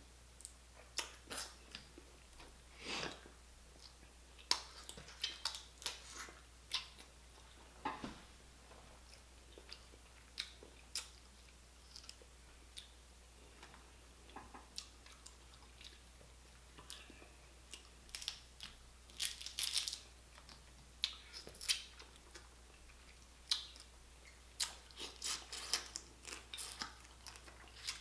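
Boiled blue crab being cracked and picked apart by hand and eaten: irregular sharp cracks and clicks of shell breaking, mixed with chewing.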